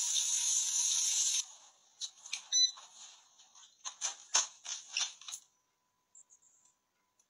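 Water from a bathroom faucet running onto a hand in a sink, a steady hiss that stops after about a second and a half, followed by a scatter of short clicks and knocks.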